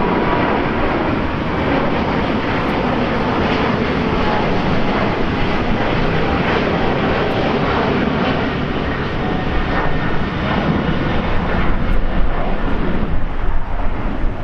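Jet airliner engine noise: a loud, steady rushing sound that grows somewhat louder near the end.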